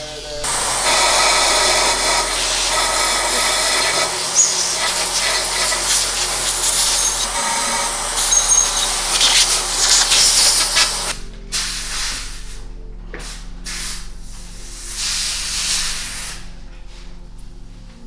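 Compressed-air spray gun hissing in one long continuous blast of about ten seconds into a trike frame tube, followed by several short bursts.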